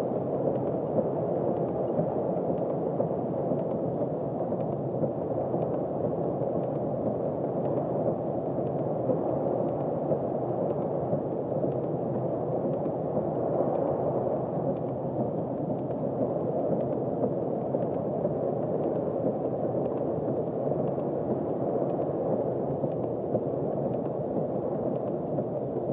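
Heavy rain pelting a car's roof and windscreen, heard from inside the cabin: a steady, dense, muffled noise with faint ticks of single drops.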